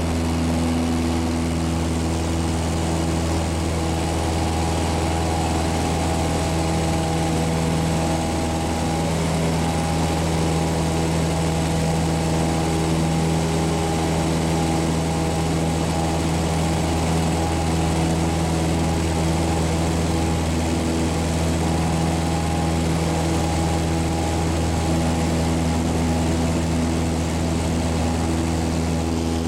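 Light airplane's engine and propeller heard from inside the cabin: a steady, unchanging drone in cruise flight.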